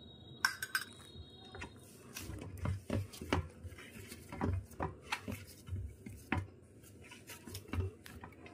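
Rice-flour dough being kneaded by hand in a stainless steel bowl: irregular dull thuds with sharp clinks and knocks of the metal bowl, about one or two a second.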